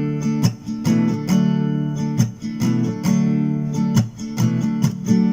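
Background music: guitar strummed in a steady rhythm, with chords that change every second or so.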